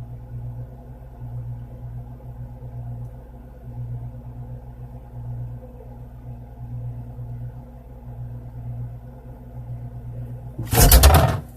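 Steady low hum of a refrigerator running, heard from inside the closed fridge, wavering slightly in strength. Near the end a short, loud clatter as the fridge door is opened.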